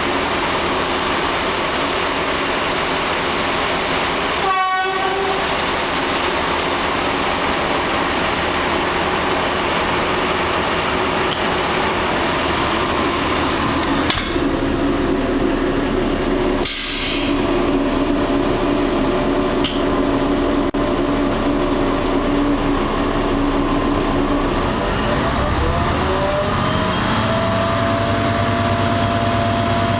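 Passenger train heard from inside the carriage as it rolls slowly along a station platform, a steady running rumble with humming tones. Near the end a rising whine settles into a steady hum as the train comes to rest.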